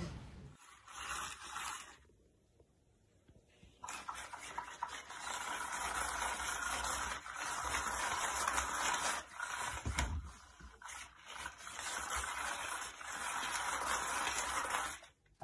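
Battery-powered spinning cat toy whirring and rustling under its fabric cover, a steady noise that starts about four seconds in with a few brief dips.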